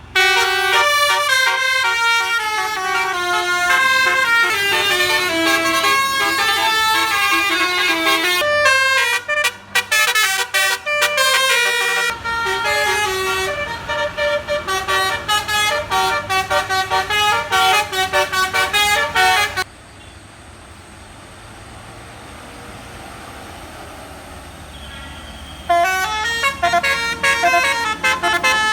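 Bus basuri multi-tone air horn playing a tune in quick stepped notes. It stops about two-thirds of the way through, leaving quieter engine and road noise, and starts playing again near the end.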